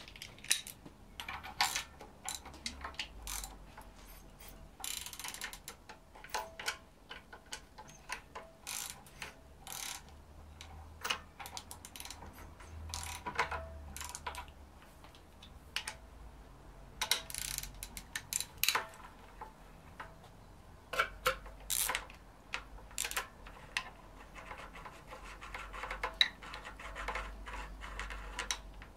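Socket ratchet clicking in short runs of rapid ticks with pauses between, as the small bolts holding the cylinder head to the timing cover are undone.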